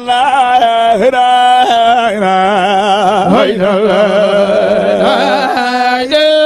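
A man's solo voice chanting Islamic zikr (remembrance of God) in Arabic. He holds long, drawn-out notes that waver and turn in pitch, with a couple of short breaks.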